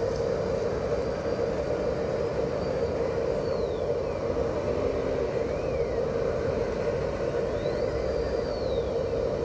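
Simulated diesel engine sound from the sound kits of RC construction models, a Cat 374F excavator and an 8x8 dump truck, running as a steady drone. Over it a thin motor whine rises and falls in pitch a few times as the dump truck drives up.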